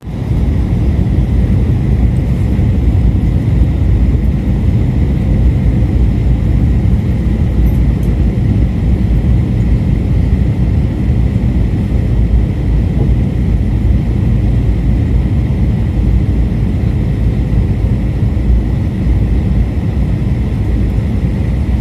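Airbus A321 cabin noise in flight: a steady, loud low rumble of engines and airflow, with a thin steady whine above it.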